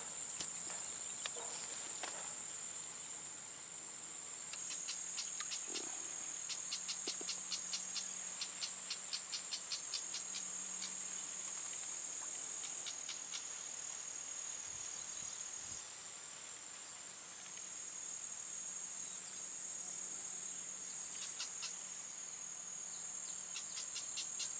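Insects in the grass trilling steadily, a continuous high buzz, with runs of rapid clicking chirps from another insect coming and going over it.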